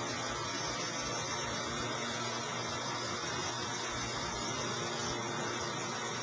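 Steady, even hiss with a faint unchanging hum underneath; nothing starts or stops.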